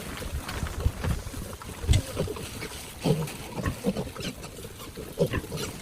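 Pigs grunting: short low grunts at irregular intervals over a steady background noise.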